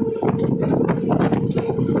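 A moving vehicle running with a steady hum and a fast, continuous rattle of clicks and knocks.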